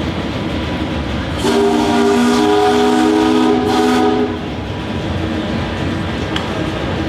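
A steam whistle blown once for about three seconds, sounding a chord of several steady tones, over a steady rumble of running machinery; the whistle starts a second or so in and cuts off sharply.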